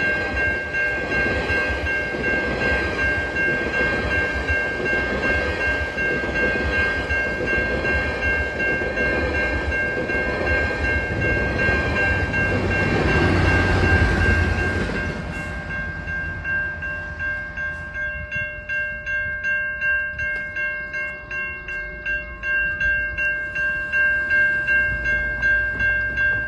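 Level-crossing warning bells ringing steadily while a GO Transit train of bilevel coaches passes, loudest about 14 seconds in as its diesel locomotive goes by. The train noise stops a little after that, and the crossing bells ring on alone in a steady rhythm.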